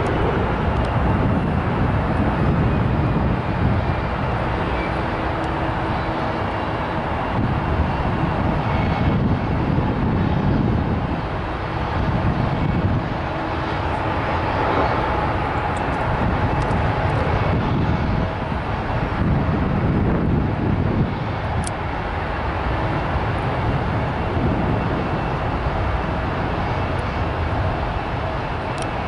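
Airbus A380's four Rolls-Royce Trent 900 turbofans at takeoff power, heard across open water as a steady heavy rumble that swells and eases, with a faint whine above it.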